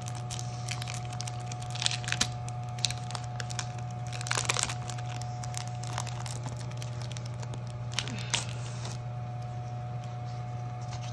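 Clear plastic sleeve on a pack of patterned paper crinkling and tearing as it is unwrapped by hand. It comes as scattered crackles, with a louder burst about four and a half seconds in and another about eight seconds in.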